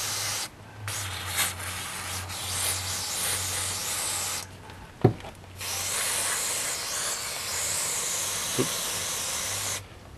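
Aerosol brake cleaner hissing from its can through a red extension straw onto a drum-brake wheel cylinder, in three long bursts with short pauses between them. A sharp click comes about five seconds in.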